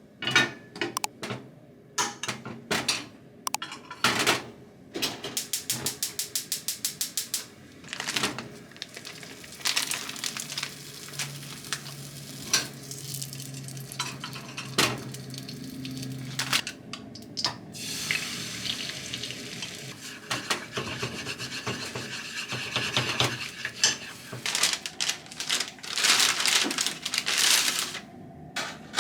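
Dishes and utensils clinking and knocking, with a quick even run of taps a few seconds in, a low hum in the middle, and a stretch of hiss like running water or sizzling after that.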